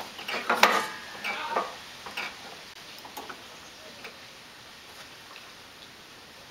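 Metallic clicks and clatter of a wrench and parts being handled at a snow blower's cable adjuster: a dense cluster in the first two seconds with brief ringing, then a few scattered ticks.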